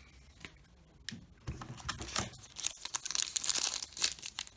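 Wrapper of a baseball card pack being torn open and crinkled. There are a few light clicks at first, and the crackling starts about a second and a half in.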